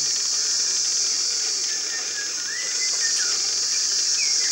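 Steady, high-pitched insect chorus, with a bird singing short whistled phrases that slide up and down, about two seconds in and again near the end.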